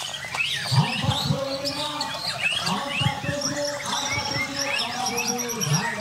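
Several Borneo white-rumped shamas singing at once in competition: a dense mix of overlapping whistles, chatters and trills, with a quick run of high repeated notes near the end. People's voices run underneath.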